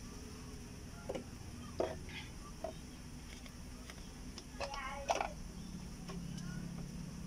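Short plastic clicks and knocks as wire connectors are handled and pushed onto a refrigerator's inverter control board, over a low steady hum, with a brief voice about halfway through.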